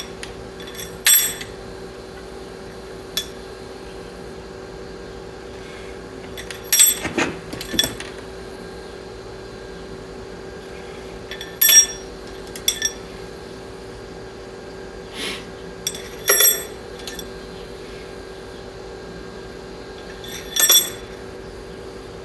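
Metal push rods clinking against the engine as they are set into place: about half a dozen sharp metallic clinks with a brief ring, a few seconds apart, over a steady hum.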